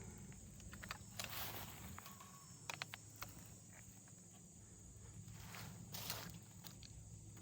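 Faint clicks and rustles of fence wire being tied onto an electric-fence gate handle, a few brief handling noises over a steady high insect chirring.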